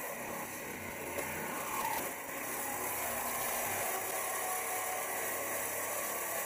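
Reciprocating saw running steadily as it cuts through the sheet-steel rear of a kei truck.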